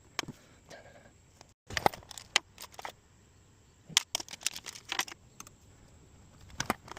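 Scattered sharp clicks and taps in small clusters, like small hard objects being handled, with a brief cut to silence about a second and a half in.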